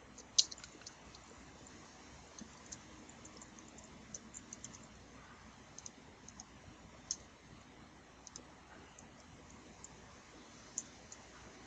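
Computer keyboard being typed on: faint, scattered key clicks at an uneven pace, with a sharper click about half a second in and another about seven seconds in.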